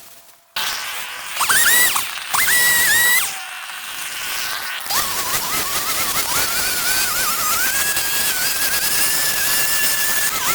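Two-stroke chainsaw starting up abruptly, revved twice in short bursts that rise in pitch, then held at a steady high buzz from about five seconds in.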